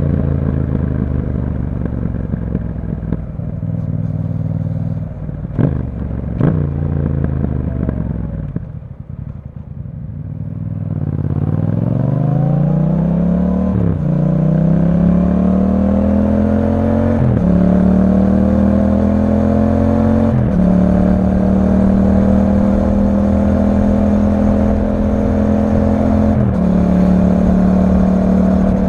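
Yamaha MT-07's parallel-twin engine through an Akrapovic exhaust, slowing down with falling revs and two sharp cracks, dropping to a low tick-over, then accelerating away and shifting up through the gears four times.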